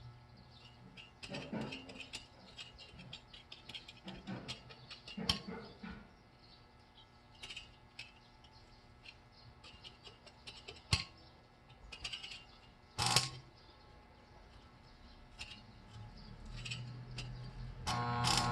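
Scattered mechanical clicks and knocks, sharpest about eleven and thirteen seconds in, with a short humming tone near the end.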